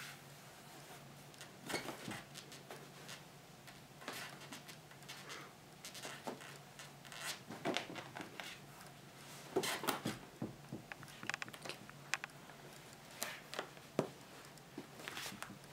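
Irregular soft scratches and rustles of play: a plush toy being rubbed and pushed against a padded chair back while a kitten paws and scrabbles at it, with a busier flurry about ten seconds in. A faint steady hum sits underneath.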